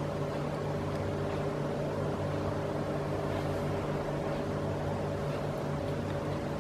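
Steady low room hum, a machine-like drone with a few faint steady tones and no distinct handling sounds.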